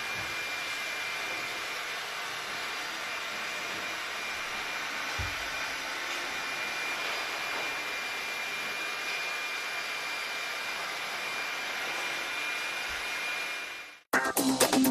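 Leister Sonora S1 hot air hand tool (heat gun) blowing steadily: an even rush of air with a faint high whine from its fan. It cuts off abruptly shortly before the end.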